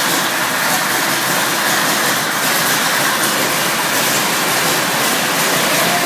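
Stearman biplane's radial engine running loud and steady on its first start.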